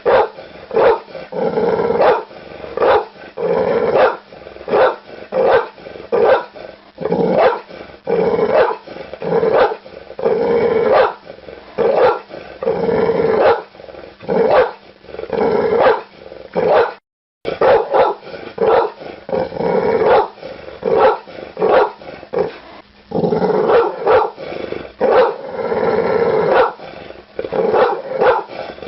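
Pit bull barking hard and fast, again and again, with growling between the barks; the sound drops out completely for a moment about seventeen seconds in.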